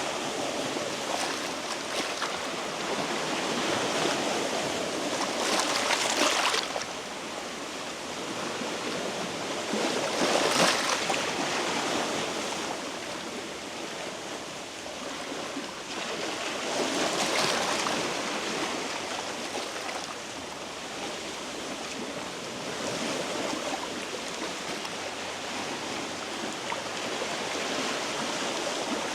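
Sea waves washing over a rocky shore, the rush swelling and falling back every few seconds.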